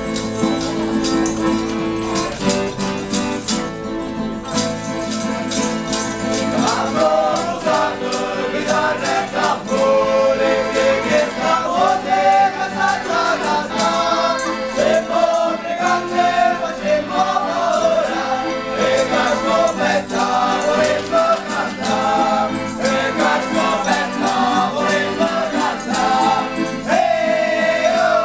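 Small folk band playing: piano accordion and acoustic guitar with tambourine, joined about seven seconds in by several men singing together.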